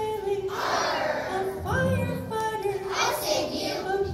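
A children's song: young voices singing a melody over a backing track with a recurring bass beat.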